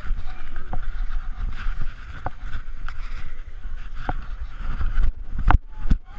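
Wind buffeting the microphone with a low, unsteady rumble and scattered knocks, and two sharper knocks near the end.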